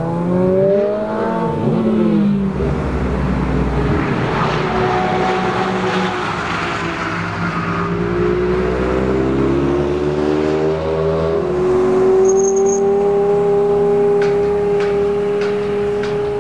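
Ferrari V8 sports cars accelerating away one after another, among them a 360 Challenge Stradale with an aftermarket Capristo exhaust. Their engine notes climb and drop through gear changes, then settle into one steady held note for the last few seconds.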